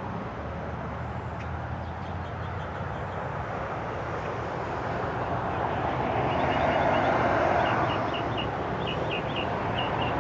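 Steady road-traffic rumble, with a vehicle swelling past about two-thirds of the way in. Over it, a small bird chirps quickly, several high notes a second, from about halfway on.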